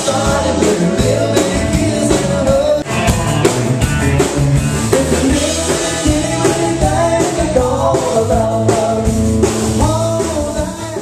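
Live band playing: a woman singing over acoustic and electric guitars and a drum kit.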